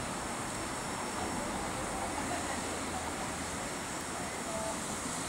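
Steady hiss of a steam locomotive standing in steam, with faint voices in the background.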